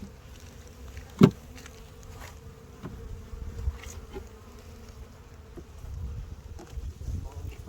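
Honeybees buzzing around an open hive, a steady hum, with one sharp knock about a second in.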